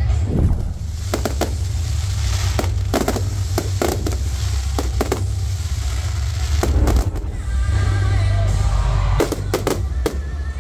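Fireworks display going off over loud music: scattered sharp shell bursts and bangs, several in quick clusters, over a continuous low rumble.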